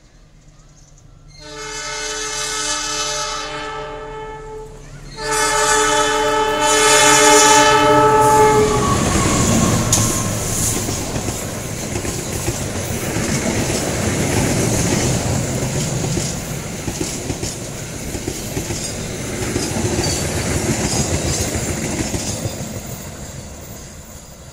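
CC206 diesel-electric locomotive sounding its multi-tone horn in two long blasts, the second longer and louder. The train then passes close by, its locomotive and passenger coaches rumbling with a clickety-clack of wheels over the rail joints, fading near the end as it moves away.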